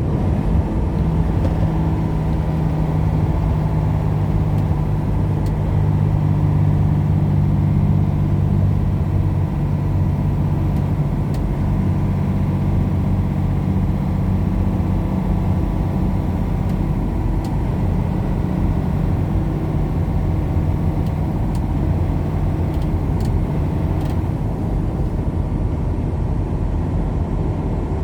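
Semi-truck engine and road noise heard from inside the cab while cruising: a steady low drone at constant engine speed.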